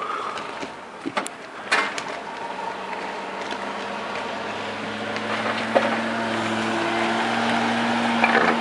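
Snowplow truck approaching, its engine running steadily and growing louder over a rushing noise, with a few sharp clicks in the first two seconds.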